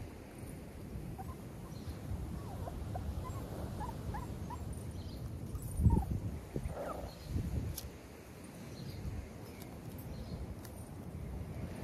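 Six-week-old XL pitbull puppies whimpering, with many short high whines and yips through the first seven seconds or so. Wind gusts rumble on the microphone, loudest about six seconds in.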